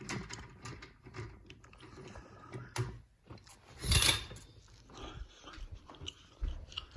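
Window blinds being closed: scattered light clicks and rattles, with one louder rattle of about half a second around four seconds in.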